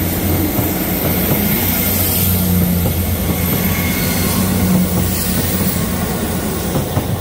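Two coupled Class 159 diesel multiple units pulling away past the platform end, their underfloor diesel engines running with a steady low drone over wheel and rail noise.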